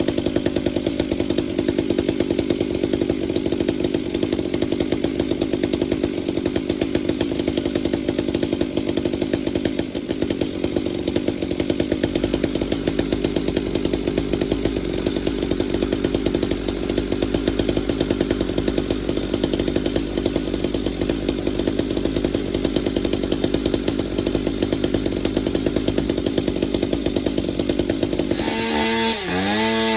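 Chainsaw running steadily at high speed with a fast, even engine pulse. Near the end its pitch dips and swings up and down as the saw is loaded in a cut through the pine.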